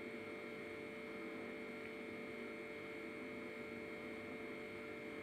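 A quiet, steady hum with a thin high whine above it, unchanging throughout.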